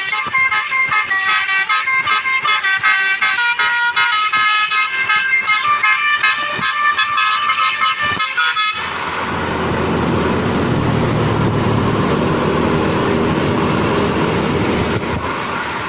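Basuri telolet multi-tone horn with roof-mounted trumpets on a tour bus, playing a fast melody of short stepped notes, several a second. About nine seconds in the melody stops and a steady noisy rumble takes over.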